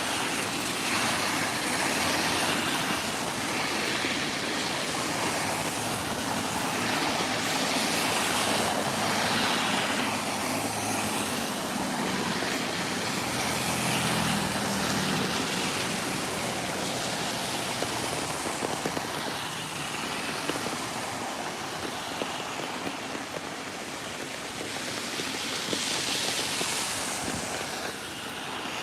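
Road traffic on rain-wet pavement: vehicles hissing past one after another on the wet road, one with a deeper engine hum about halfway through.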